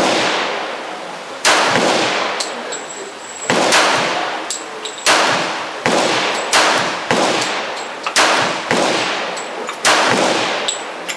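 Glock 21 .45 ACP pistol firing Sellier & Bellot 230-grain full metal jacket rounds: about nine shots at an uneven pace, one to two seconds apart, each trailing off in a long echo. Faint metallic clinks are heard between some shots.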